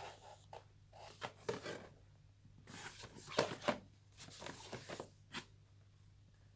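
Cardboard phone box handled and turned over in the hands: scraping and rustling of the card with a few soft taps, loudest about three and a half seconds in and dying away after about five and a half seconds.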